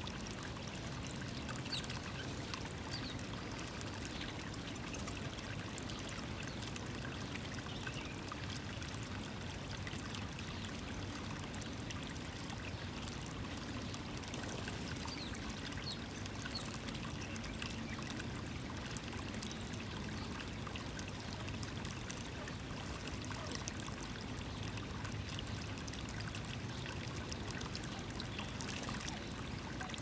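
A steady rushing hiss like running water, with faint short high chirps scattered through it.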